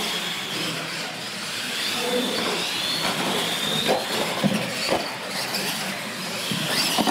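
Electric radio-controlled monster trucks driving: a high motor and gear whine that rises and falls with the throttle over the rush of tyres on concrete, with several knocks in the second half.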